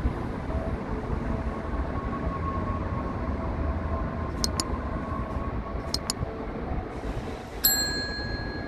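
Low steady rumble of distant traffic, with a pair of sharp mouse clicks about four and a half seconds in and another about six seconds in. Near the end comes a bright bell ding, the sound effect of an animated subscribe-and-notification-bell overlay.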